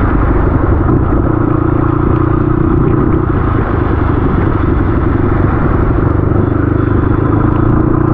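RM250 dirt bike engine running steadily under way, its pitch holding nearly level, mixed with road and wind noise.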